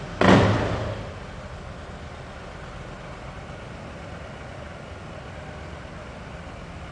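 Yamaha XVS1300 Midnight Star V-twin idling through its stock exhaust, which has a 29 mm hole drilled in it, giving a steady low rumble. Near the start there is one sudden loud exhaust blast that fades within a second.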